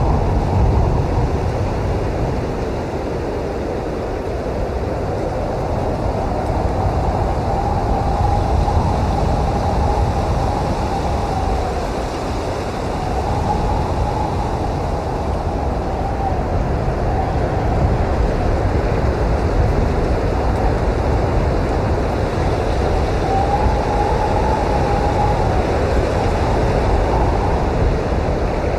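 Blizzard wind blowing hard: a steady deep rumble with a faint whistling howl that swells and fades a few times.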